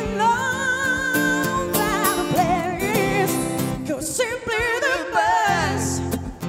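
Female vocalist singing live with strong vibrato over a band with acoustic guitar and drums: a long held note, then wavering, ornamented runs that end shortly before the close.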